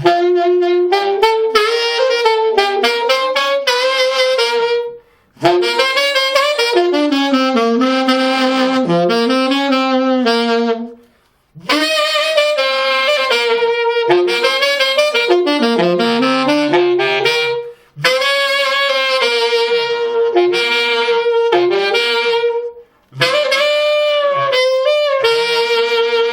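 Saxophone played with a throat growl, made by vibrating the whole throat while blowing. Five melodic phrases with short breaks between them.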